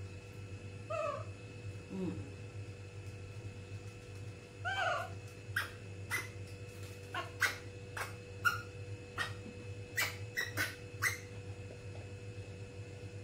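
Baby monkey calling: two short cries, a louder half-second cry about five seconds in, then a quick series of short, sharp squeaks. A steady low hum runs underneath.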